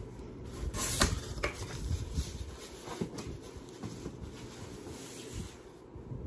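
A small cardboard shipping box being opened and its contents handled by hand: irregular rustling and scraping, with a louder burst about a second in.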